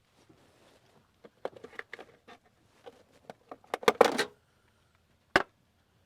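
Hands-on handling noises: a run of light clicks and knocks, a louder clatter about four seconds in, and one sharp click near the end.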